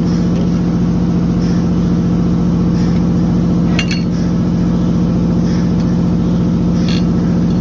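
Steady, loud machine hum running through, with a few short metallic clinks of screws and tools being handled while a motor is fastened on, about 4 s in and again near the end.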